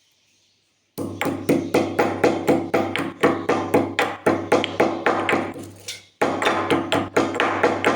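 Pestle pounding in a small mortar, crushing cumin seeds with quick, regular strikes about three a second. It starts about a second in and pauses briefly around six seconds in.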